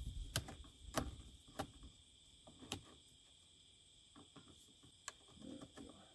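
A few light clicks and knocks of PVC pipe fittings being handled and turned on a transducer pole, four clear ones in the first three seconds and fainter ones after, over a steady high chirring of insects.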